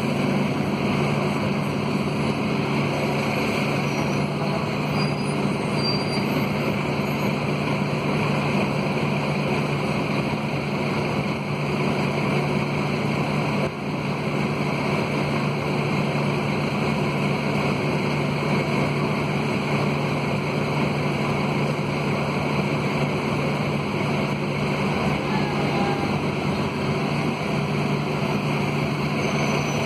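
Scania K230UB city bus heard from inside the passenger cabin while under way: its Scania DC9 diesel engine running steadily and the radiator fan howling, with road noise. The level dips briefly about halfway through.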